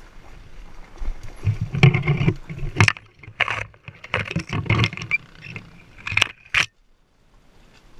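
Dirt bike rattling and clattering over a rocky trail, with branches scraping against the bike and helmet camera: irregular knocks and scrapes, then a brief quiet spell near the end.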